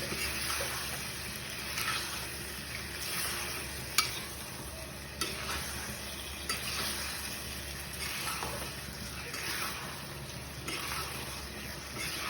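Chicken pieces sizzling in curry masala in a pan as a spoon stirs them, with scattered sharp clicks of the spoon knocking the pan, the loudest about four seconds in.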